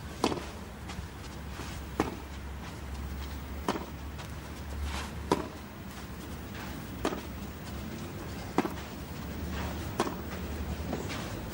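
Tennis rally: racket strings striking the ball back and forth, about seven crisp hits spaced roughly a second and a half apart.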